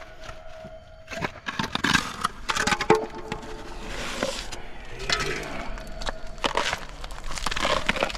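Plastic bag crinkling and broken concrete debris scraping and crackling as a bagged plastic cache box is worked out of a gap in the rubble by hand, in many short, irregular bursts.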